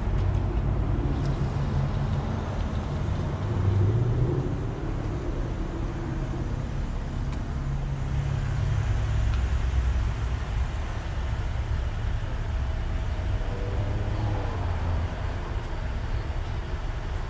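Car engine running at low speed with a steady low rumble, as the car pulls forward and stops.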